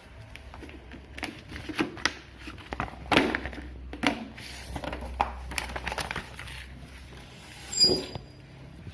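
Objects being handled at close range: a series of irregular knocks and clicks with some crinkling.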